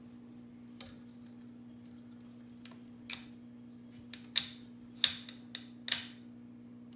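Sharp clicks from pliers squeezing a hose clamp tight on vinyl aquarium tubing: one near the start, one about three seconds in, then a quick run of five between about four and six seconds, over a steady low hum.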